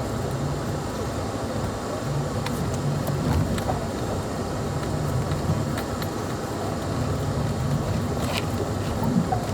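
Off-road vehicle engine running steadily while driving, with scattered short clicks and knocks from the rough trail.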